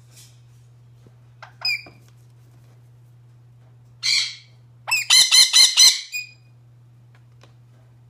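Nanday conure squawking: two short calls, a harsh screech about four seconds in, then a quick run of five loud squawks.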